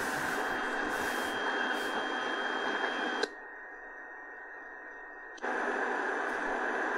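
Static hiss from the Prunus J-15's speaker on the AM (medium wave) band, tuned between stations, with a faint steady high whistle. The hiss cuts out abruptly about three seconds in and comes back about two seconds later.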